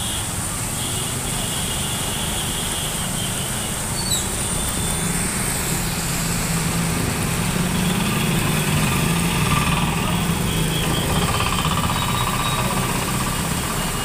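Motor vehicles driving through a flooded street: small engines running steadily, their low hum swelling through the middle, over a constant hiss.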